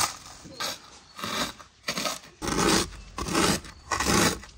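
Crisp, thin baked pastry sheets being crushed by hand into crumbs in a metal tray: about six separate crunching, scraping strokes.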